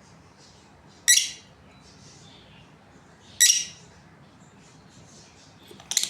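Lovebirds calling: three short, loud, high-pitched calls about two seconds apart, with fainter chirps between them.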